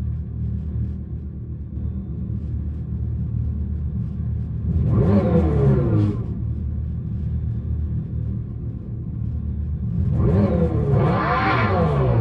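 Dodge Charger Daytona SRT Concept's Fratzonic chambered exhaust, the electric car's synthetic engine sound, rumbling steadily and revving twice: once about five seconds in, falling away, and again near the end, rising then falling.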